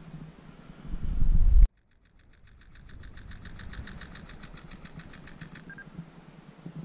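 Wind buffeting the microphone, swelling about a second in, then cut off abruptly. After a moment of silence comes a fast, even ticking of about eight ticks a second, growing louder for about three and a half seconds before it stops.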